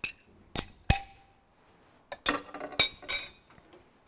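Steel spanners clinking against each other and being set down on a cast-iron tractor engine block: about six sharp, ringing metallic clinks, three in the first second and a cluster of three about two to three seconds in.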